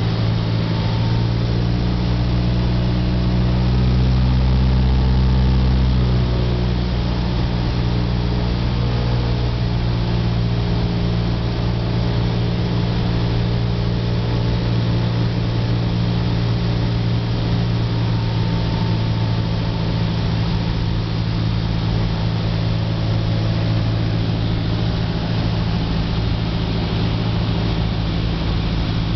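Cessna 172's piston engine and propeller droning steadily, heard from inside the cabin on final approach. It swells a little for a few seconds before settling lower about six seconds in, then holds steady.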